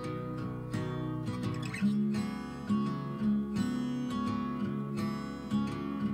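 Background music: acoustic guitar strumming chords in a steady rhythm, with a chord change about two seconds in.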